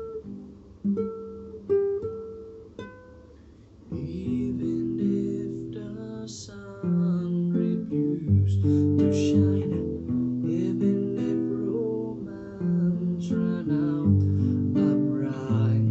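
Nylon-string classical guitar fingerpicked, sparse single notes at first. From about four seconds in, a low male bass voice sings a love song over the guitar.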